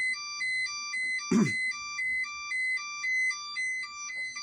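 Weather radio alert tone: an electronic two-note high-low beeping alternating about twice a second, sounded during an EAS Required Weekly Test. A short, louder burst cuts in about a second and a half in.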